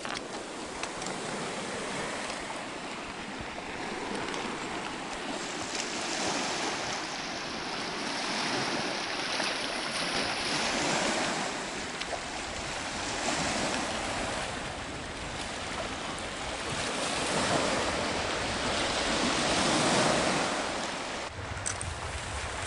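Small lake waves washing onto a cobble beach, swelling and falling every two to three seconds.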